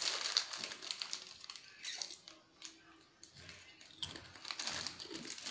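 Foil chips packet of Lay's crinkling and rustling as a chip is pulled out by hand: a run of light, irregular clicks with short pauses.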